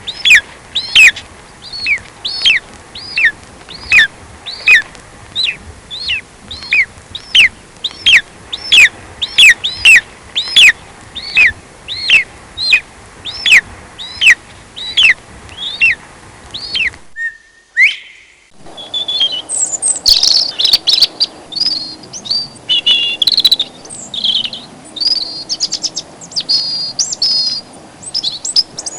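Bird calls from two different birds. First, one bird repeats a short, sharply falling call about every half second for some seventeen seconds. After a brief break a different bird follows with a quick, varied run of high chirps and trills.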